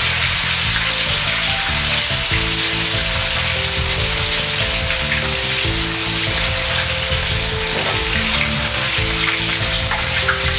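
Chicken and bamboo shoot pieces deep-frying in hot oil in a carbon-steel wok, a steady sizzle throughout, with background music underneath.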